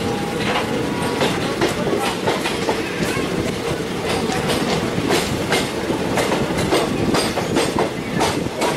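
Passenger express train running along the track, heard from the open doorway of one of its own coaches: a steady rumble with irregular clicks and clacks of the wheels over the rail joints.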